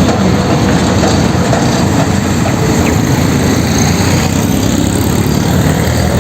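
A motor running steadily, with an engine-like rumble that does not change.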